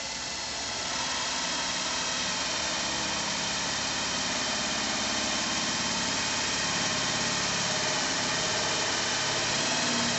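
Worx Switchdriver cordless drill running steadily under load as a 1-1/4 inch spade bit bores into a pine board. The drill is straining and the wood is burning: the user takes this bit size for beyond the tool's limit.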